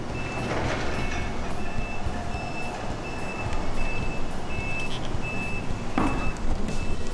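Amano MA573 cyclone dust collector running with a steady hum and rush of air. A high electronic beep repeats about twice a second throughout, and a single knock comes about six seconds in.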